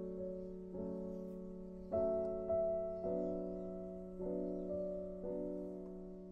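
Slow, gentle solo piano music, a new note or chord struck about once a second and left to ring.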